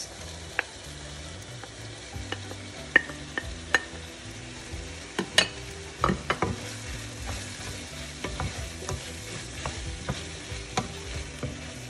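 Ground pork sizzling in a non-stick frying pan as diced potatoes and carrots are tipped in and stirred through with a wooden spatula, with scattered sharp clicks and scrapes of spatula and vegetables against the pan.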